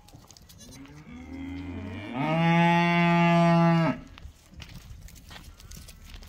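A farm animal's single long call: it rises from a lower start, then is held loud and steady for about a second and a half before stopping abruptly.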